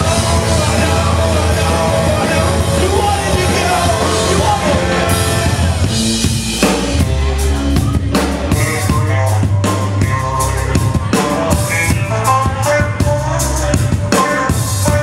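Rock band playing live: electric guitar, bass and drum kit. About six seconds in, the drums come to the fore with sharp, separate hits.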